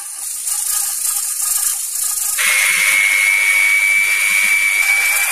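Electric mixer grinder starting about halfway through and running with a loud, steady high whine, grinding grated coconut together with poppy-seed and rice powder into a fine paste.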